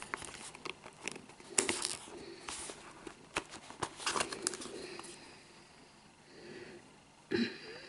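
Cardboard packaging being handled: the box's inner tray and the Apple TV are lifted out with a scatter of light taps, clicks and scraping rustles, which thin out after about five seconds before a brief louder rustle near the end.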